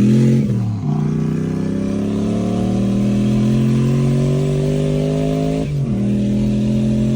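Single-turbo 5.3 LS V8 in a BMW 1 Series accelerating hard through the gears. After a shift at the start, the engine note climbs steadily for about five seconds. It drops sharply at an upshift about six seconds in, then climbs again.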